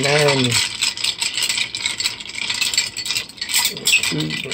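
Ice cubes rattling and clinking fast and continuously against the inside of a mixing glass as a cocktail is stirred.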